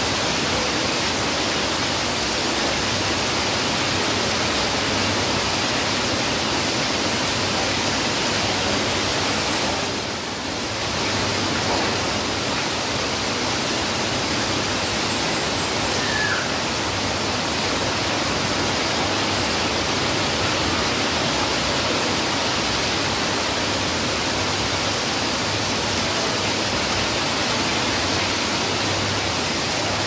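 Heavy rain falling steadily on foliage and roofs, with rainwater pouring off a roof edge. It eases slightly for a moment about ten seconds in.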